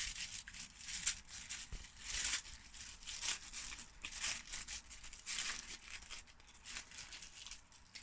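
Crinkly toy packaging being handled and torn open by hand: a run of irregular crackles and rips.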